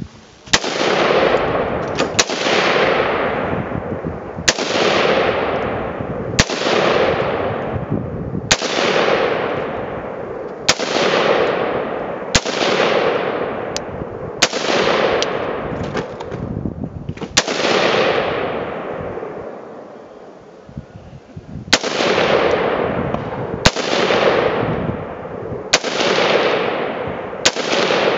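Rifle fire: about fifteen single aimed shots, roughly one every two seconds with one longer pause about two-thirds of the way through, each crack followed by a long rolling echo.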